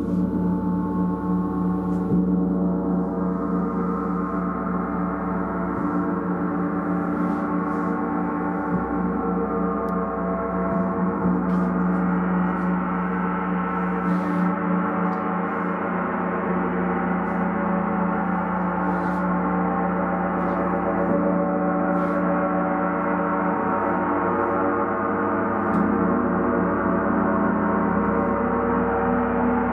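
Gong played continuously: a dense ringing wash of many overlapping tones that holds steady in loudness, with a few faint light clicks now and then.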